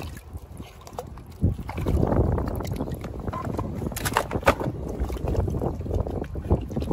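Gloved hands sloshing and splashing through shallow tide-pool water while live abalone are gathered, getting louder about a second and a half in. A few sharp clicks stand out about four seconds in.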